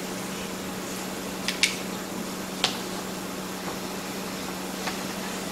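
Room tone with a steady low hum and a few sharp clicks: a close pair about a second and a half in, another a second later, and a fainter one near the end.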